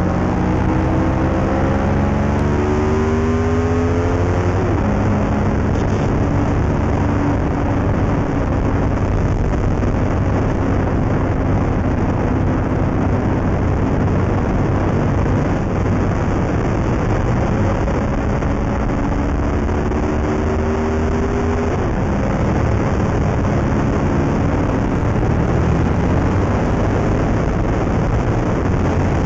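Sport motorcycle engine pulling hard through the gears, its pitch climbing over the first few seconds and again about two-thirds through, each time falling back, under heavy wind rush on the onboard microphone.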